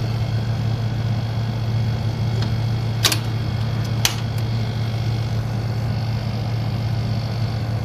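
Vintage Panasonic NV-8800 video cassette recorder running with a steady low mechanical hum, and two sharp clicks about a second apart, a few seconds in.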